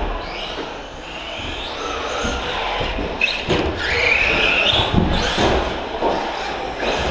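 Electric RC short-course truck's motor whining, rising and falling in pitch as it accelerates and brakes along the track, with tyre noise and a few sharp knocks.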